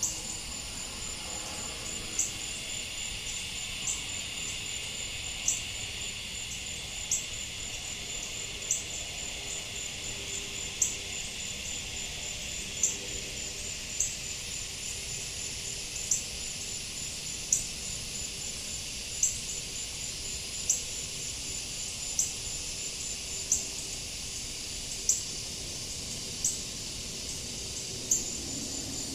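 Crickets trilling steadily at a high pitch, with a sharp click repeating about every second and a half.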